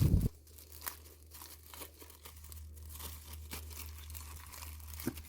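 Paper and plastic packaging being handled, with faint scattered rustling, crinkling and clicks. A low thump right at the start and a steady low electrical hum underneath.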